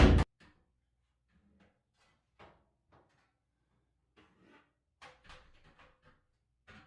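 A loud brief thump at the very start, then sparse faint clicks and light knocks of dryer parts being handled during disassembly.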